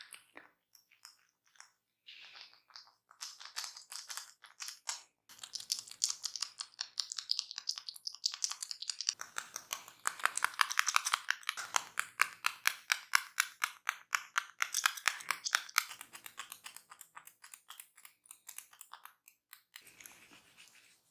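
Close-up crackling of a barber's hands massaging skin and hair: rapid, crisp rubbing strokes several a second, building up, loudest through the middle and thinning out near the end.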